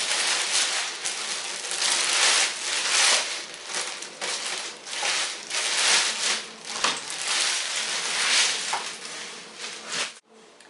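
Clear plastic bag crinkling and rustling loudly as it is pulled off a bike rack's upright, in uneven flurries, stopping abruptly near the end.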